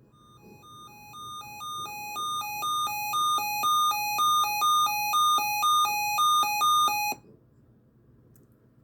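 Weather alert radio alarm: a two-tone hi-lo electronic beeping that alternates about twice a second. It grows steadily louder over its first few seconds and cuts off suddenly about seven seconds in. It is the alert tone announcing an incoming NOAA Weather Radio warning message, here a severe thunderstorm watch.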